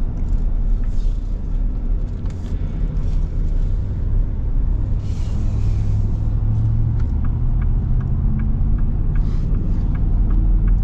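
Cabin sound of a 2024 Ford Super Duty pickup driving in town, with its 6.8-litre gas V8 droning steadily. The engine note grows stronger past the middle as the truck speeds up again, with faint ticks near the end.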